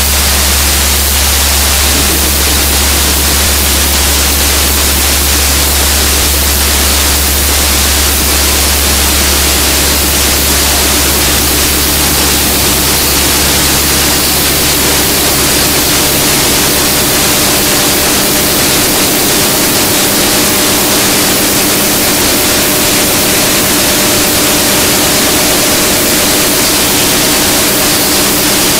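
CNC stone router cutting a sink opening in a marble slab, its spindle-driven cutter grinding through the stone under a water coolant spray: a loud, steady hiss. A low hum fades out a little past halfway, and a steady higher tone comes in over the second half.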